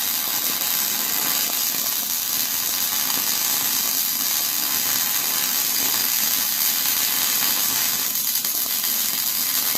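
Electric arc welding: the steady hiss of the arc as an overhead weld bead is laid, unbroken throughout.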